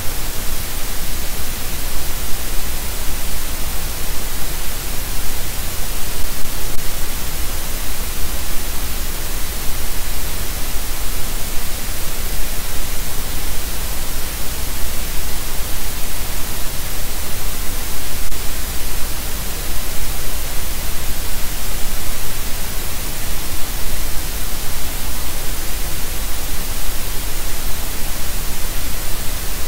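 Steady static hiss from a nest-cam audio feed, even across all pitches and unchanging, with no bird calls or other events in it.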